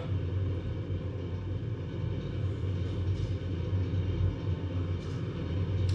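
A steady low rumble with an even hum underneath, unchanging throughout.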